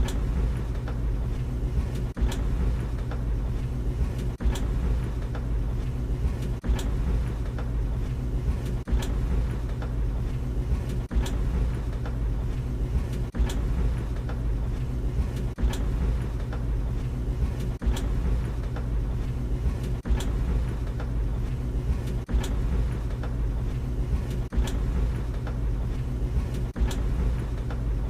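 Tumble dryer running: a steady low motor hum and drum rumble, with a sharp knock repeating about every two seconds as the drum turns.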